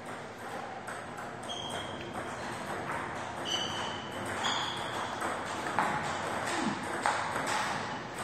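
Celluloid-type table tennis ball clicking off rubber paddles and the table top in a rally, a sharp tock every half second or so, with a few short high squeaks among the strikes.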